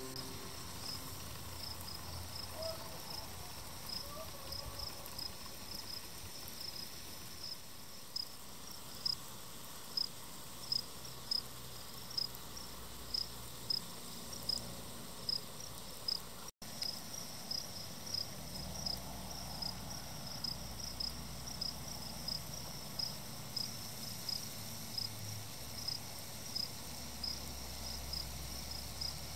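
Cricket chirping: short, high chirps at one pitch repeating about one to two a second, over a faint steady hiss. The sound cuts out for an instant about halfway.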